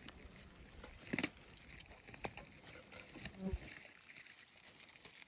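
Faint outdoor background with a few scattered light clicks and, about three and a half seconds in, a brief low murmur from a voice.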